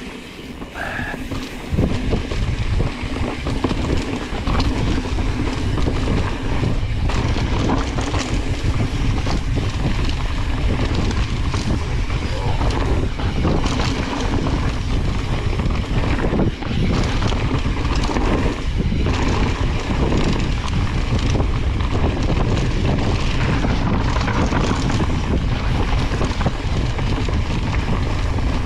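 Wind buffeting the microphone of a mountain biker's camera during a fast trail descent, mixed with the tyres and bike rattling over rough ground in many short knocks. It gets louder about two seconds in.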